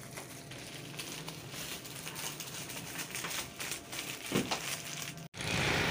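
Light crinkling and rustling with many small scattered clicks, from things being handled close to the microphone. There is a dull thump about four and a half seconds in, and then the sound cuts off abruptly.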